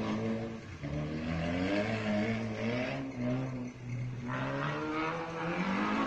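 Competition car's engine revving hard as it accelerates, its pitch climbing and dropping back several times.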